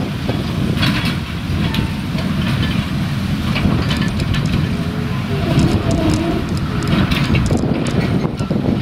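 Narrow-gauge peat railway wagons rolling past on the track: a steady low rumble with scattered sharp clacks and knocks from the wheels and couplings.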